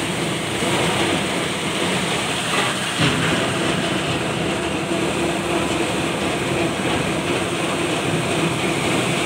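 Crushed ice blown through a large chute pipe into a fishing boat's fish hold: a steady, dense rush and rattle of ice with a steady machine hum under it. A single knock about three seconds in.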